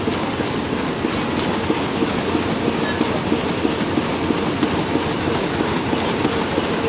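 Kestar CGFM series servo high-speed laminating machine running: a steady mechanical rumble with an even clatter about four times a second.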